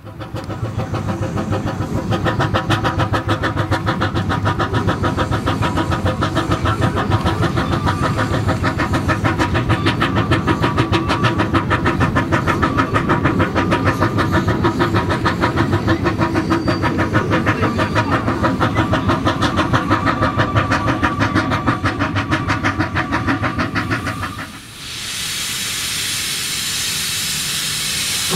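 Narrow-gauge steam locomotive working a train of coaches, its exhaust beating fast and evenly at about four beats a second. Near the end the beats cut off and a steady hiss of steam takes over.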